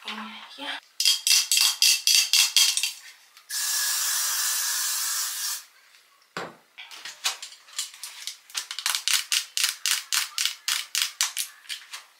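Hair product spritzed from a spray bottle: a quick run of short sprays, then one steady spray lasting about two seconds, then more rapid short sprays at about three to four a second.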